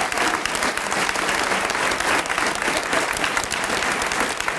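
An audience applauding steadily: many people clapping their hands at once.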